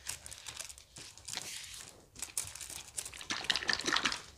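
Crinkling and crackling of disposable plastic gloves and foil as gloved hands work spicy sauce into fried chicken, with a denser run of crackles about three and a half seconds in.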